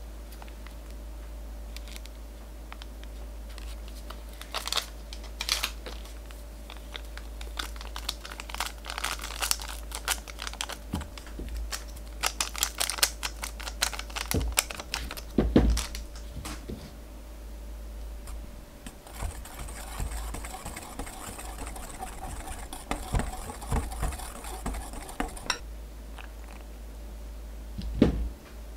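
Plastic instant-coffee stick packet crinkled and torn, with scattered sharp clicks and taps as the coffee powder is shaken out over powdered sugar in a glass bowl. Later comes a steady hiss lasting about six seconds, and near the end a single knock as a metal whisk goes into the bowl.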